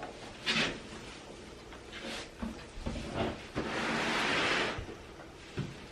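Handling noises: a few short knocks and scrapes, then a longer rustling scrape lasting about a second, as things are moved around while searching for a plug socket.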